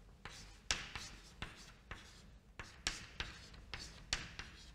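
Chalk writing on a chalkboard: short, irregular taps and scratches, a few each second, as letters are written.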